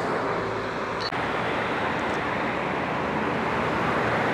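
Steady noise of road traffic on a busy city street, with a short dip about a second in.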